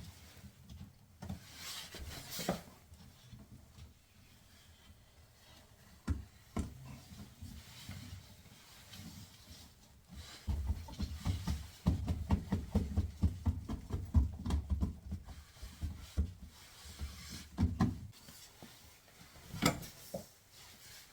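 Handling noises from a front-load washer's rubber door boot gasket being pressed and worked into place: rubbing with a few sharp knocks, and a busy stretch of low rubbing and thumping in the middle.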